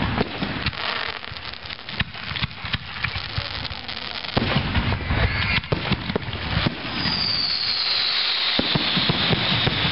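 Fireworks display: a string of sharp bangs and crackles from bursting shells, then about seven seconds in a long high hiss that slowly falls in pitch.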